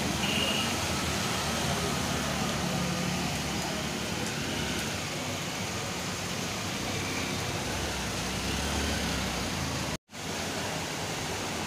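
Steady hiss of rain and water on a flooded street, with motorbikes and cars driving through the water. The sound breaks off for an instant near the end at a cut.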